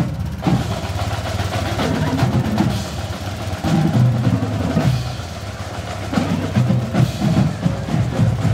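Drums playing: a rapid run of snare and bass drum strokes, with rolls.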